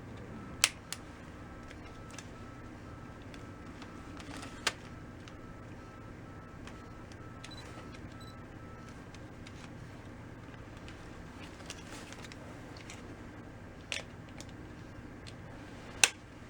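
A few sharp, isolated clicks from handling a Canon EF-S 18-200mm zoom lens and its small parts during repair, over a steady low hum.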